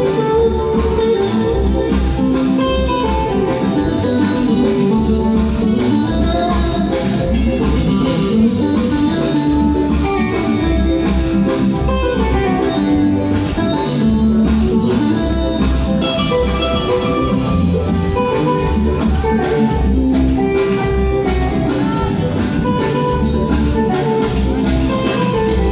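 Band music with guitar lines over a steady, repeating bass beat, and no singing.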